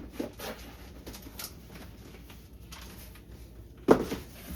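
Items and packaging being handled during an unboxing: a few faint rustles and light clicks, then one sharp knock about four seconds in.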